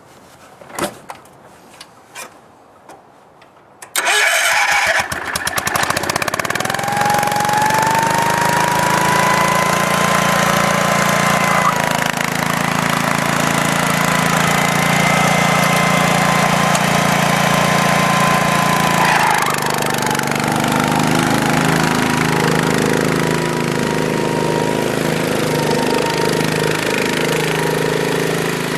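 A few separate clicks and knocks, then, about four seconds in, the Wheel Horse C101's 10-horsepower cast-iron single-cylinder Kohler engine catches at once and runs steadily, with a whine over it for a stretch. The engine is starting and running again after a new ignition coil and the repair of a bad clutch switch.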